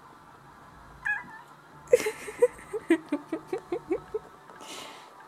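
A domestic cat meows once, briefly, about a second in. Then comes a sharp knock and a quick run of short low sounds, about five a second for two seconds, and a brief rustle near the end.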